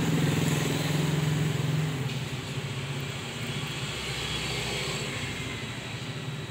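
A vehicle engine running steadily, loudest for the first two seconds and then fading.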